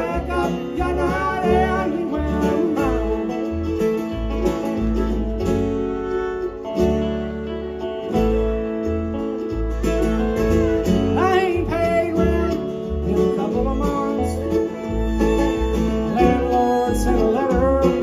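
Live bluegrass band playing, with banjo and acoustic guitar over the low plucked notes of an upright bass.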